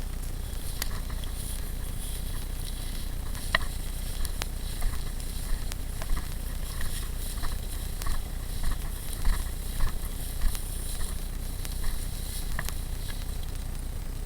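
Footsteps crunching on dry ground, roughly one every 0.6 s, starting a few seconds in and stopping a few seconds before the end, over a steady low rumble.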